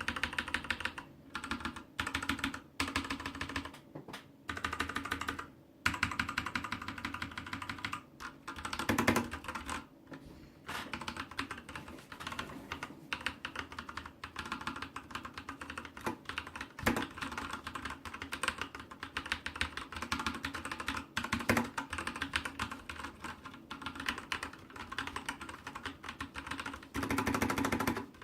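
Sharkoon Skiller Mech SGK2 mechanical keyboard with tactile, non-clicky Kailh Brown switches being typed on: rapid key clacks in short bursts with brief pauses over the first few seconds, then continuous fast typing.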